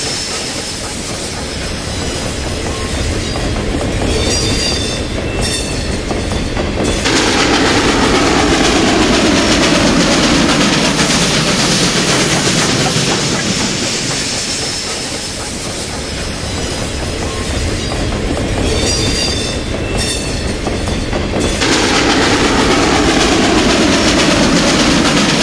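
A steam-hauled freight train of hopper cars rolling past on the rails with a steady rumble and clatter of wheels. It grows suddenly louder about seven seconds in and again a few seconds before the end.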